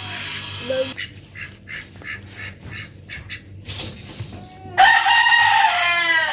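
Domestic poultry calling: a few soft, short calls, then one loud, long call that falls in pitch at the end.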